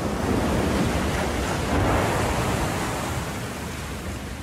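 A swell of rushing, hiss-like noise that rises over about half a second, holds for a couple of seconds and then slowly dies away, used as a transition sound under a section title.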